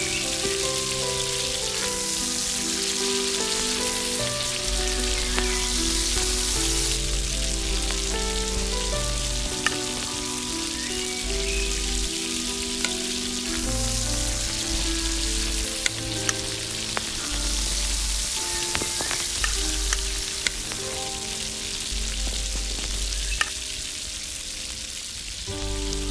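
Scrambled egg and tomato sizzling in a miniature metal wok while a small metal spatula stirs and scoops, with scattered light clicks of metal on metal. Soft background music with held low notes plays underneath.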